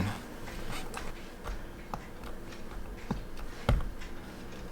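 A few light, scattered clicks and taps of small tools handling an opened quartz watch movement, the loudest a duller knock more than halfway through.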